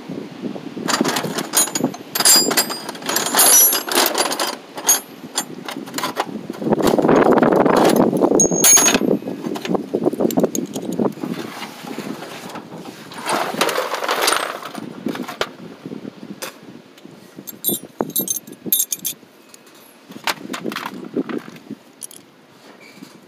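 Metal hand tools and sockets clinking and clattering as they are rummaged through in a toolbox, with a longer stretch of scraping and shuffling about seven seconds in.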